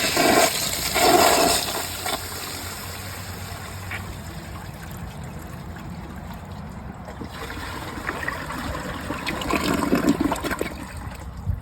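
2023 Mansfield ProFit toilet flushing with an overfilled tank and a partly clogged trapway. A loud rush of water as the flush starts, a quieter steady swirl while the bowl holds back, then a louder rush near the end as the bowl finally siphons out.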